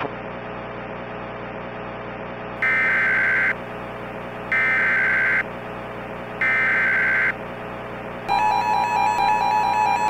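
Emergency Alert System tones over a steady radio hiss. The SAME header plays as three raspy data bursts of about a second each, evenly spaced. About eight seconds in, a loud two-tone attention signal starts and holds.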